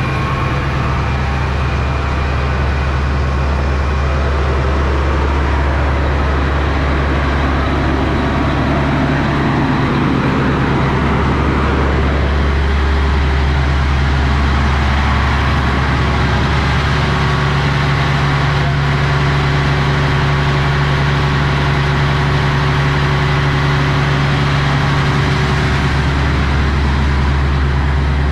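Enclosed Caterpillar diesel generator set running steadily, a loud, even, deep drone.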